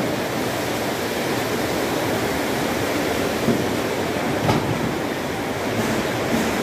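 Steady din of a railway carriage repair workshop, with two short knocks about halfway through.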